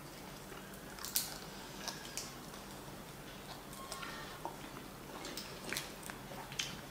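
Close-miked eating of a breaded baked mussel (cozze gratinate): lips and teeth working the hard, sticky breadcrumb topping off the shell and chewing it, heard as scattered soft clicks and smacks.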